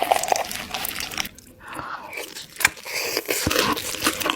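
Close-miked crunching and chewing of crispy fried chicken, with many sharp crackles from the crisp coating and a short lull about a second and a half in.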